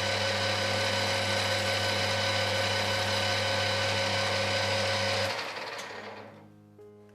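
Electric machine-tool motor running steadily with a constant whine, then stopping about five seconds in and fading out over a second or so.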